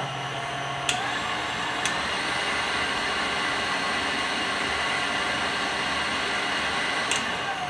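KitchenAid Artisan stand mixer running at speed with its wire whip spinning in an empty stainless steel bowl. Its motor whine rises about a second in as it is brought up to the top speed, 10, holds steady, then drops near the end as it slows. A few sharp clicks.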